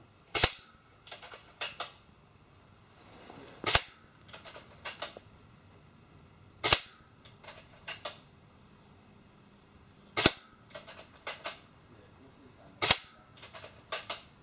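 Double Eagle M57 spring-powered bolt-action BB sniper rifle firing five single shots, each a sharp crack, roughly three seconds apart. Quieter clicks follow each shot.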